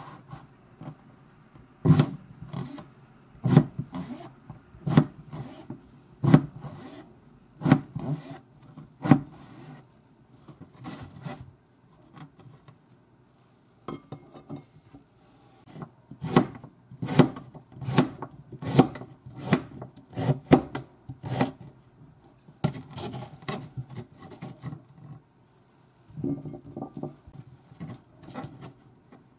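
Kitchen knife cutting eggplant and carrot on a plastic cutting board, each stroke a sharp knock on the board. Slow, evenly spaced cuts at first, then quicker ones at about two a second after a short pause.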